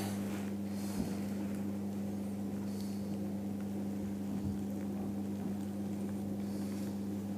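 Steady low electrical hum, a deep tone with a stronger one an octave above. Faint knocks come about a second in and again about four and a half seconds in.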